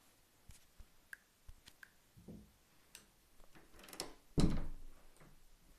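Scattered light clicks and taps from a handheld camera being moved about, then a louder thump about four and a half seconds in.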